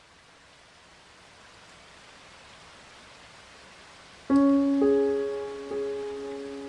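A faint, steady hiss of rain, slowly swelling, then slow piano music starts about four seconds in with a few sustained notes.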